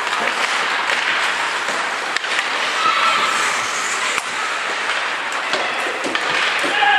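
Ice hockey play on an indoor rink: a steady scraping hiss of skate blades on ice, with sharp clacks of sticks and puck now and then and faint shouts in the rink.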